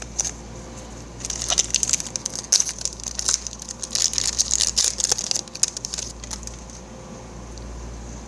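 Crinkling and crackling of a foil trading-card booster pack wrapper and cards being handled, a dense run of crackly clicks from about a second in until about six seconds in.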